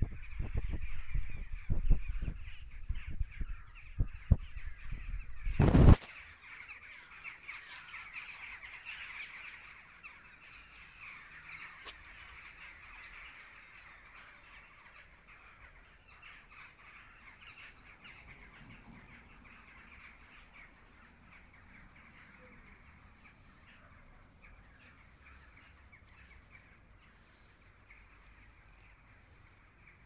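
A flock of birds calling, many overlapping calls at once, loudest from about six to twelve seconds in and then slowly fading. During the first six seconds low rumbling buffets on the microphone are the loudest sound.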